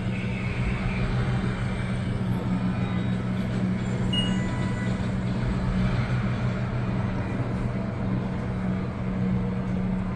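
Steady low hum and rushing noise inside the One World Trade Center observatory's high-speed express elevator cab as it climbs.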